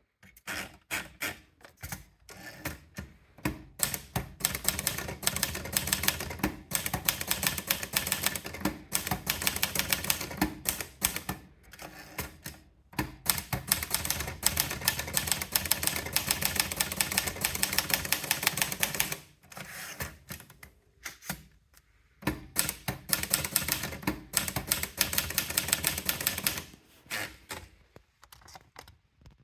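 Olivetti Lettera DL manual portable typewriter being typed on: rapid runs of key strikes clacking against the platen, broken by a few short pauses.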